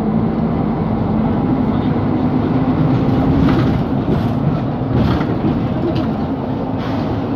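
Cabin noise of a Mercedes-Benz Conecto G articulated bus under way: the OM457LA turbo diesel and drivetrain hum steadily. In the second half come about five short sharp creaks roughly a second apart, which the uploader puts down to the articulation bellows and loose parts.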